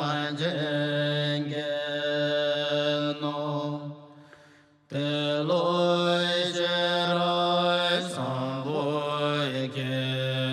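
Slow chanted mantra as soundtrack music, a low voice holding long drawn-out tones. It fades out about four seconds in and starts again abruptly about a second later.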